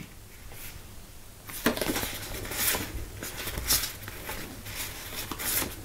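Stiff card art cards being handled: soft rustles with a handful of light taps as the cards are shuffled and set down.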